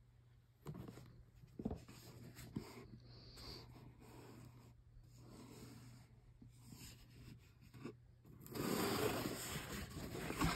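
Handling noise from a cardboard box being moved and turned over: scattered rubs, scrapes and light taps, with a longer, louder scraping rustle near the end.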